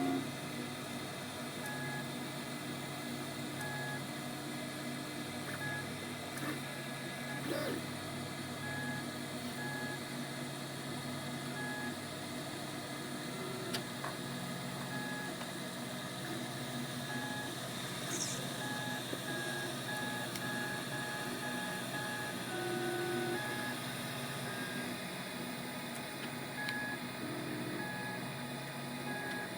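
MakerBot 2 3D printer running a print: its stepper motors whine in steady tones that keep switching pitch as the print head moves, over a constant machine hum.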